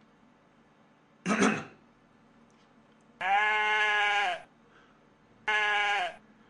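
A man imitating a bleating animal with his voice. There is a short rough burst about a second in, then two long steady bleat-like calls, the second one shorter.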